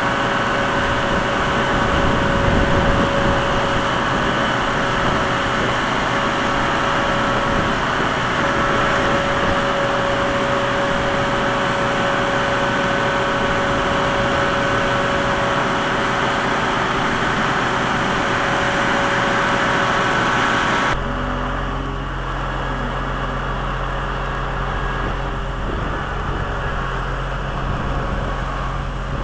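Heavy diesel machinery engine running steadily, with a sustained whine over it. About two-thirds of the way through it cuts off abruptly to a quieter, lower, even engine idle.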